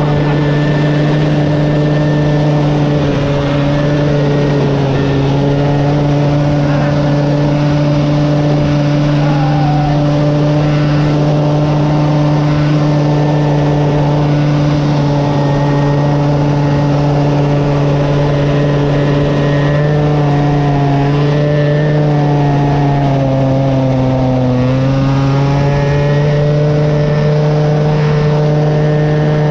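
Motor of a small ride-on vehicle running close by at a steady pitch. About 24 seconds in it slows, dropping in pitch briefly, then picks back up.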